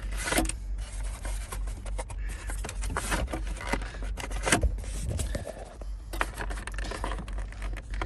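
Irregular clicks, scrapes and rattles of hands and tools working at a plastic steering column cover, trying to pry its hooks loose, over a steady low rumble.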